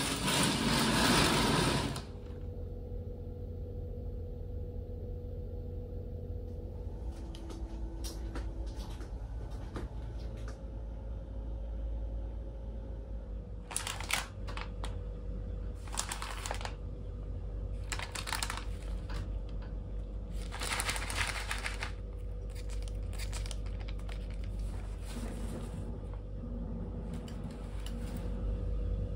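Rain falls for about two seconds and cuts off abruptly. Then comes a small room's steady low hum with a faint steady tone, broken now and then by short rustles and soft knocks.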